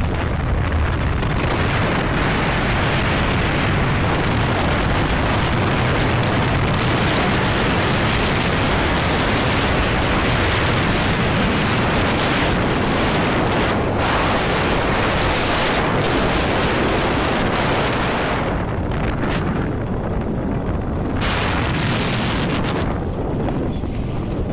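Wind rushing and buffeting against the microphone of a camera on a moving vehicle, mixed with road and engine noise. The noise is loud and continuous, easing a little in brightness near the end.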